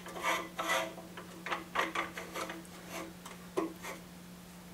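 Metal crossbars of a Kanto MTM65 TV stand sliding and scraping through the stand's upright poles, a run of irregular clicks and rasps that dies away near the end.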